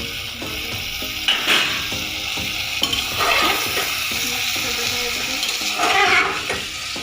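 Chicken and fried potato curry sizzling in an open pressure cooker pot as it is stirred. A spoon scrapes louder against the pot three times, a little over a second in, about three seconds in and near the end.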